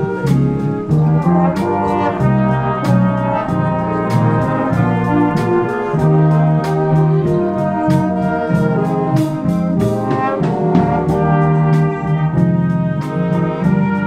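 Big band playing a swing ballad: saxophones and brass holding chords over a steady beat of about two strokes a second.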